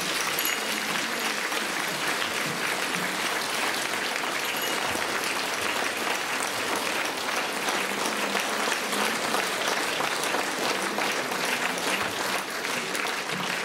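Long, steady applause from many people clapping.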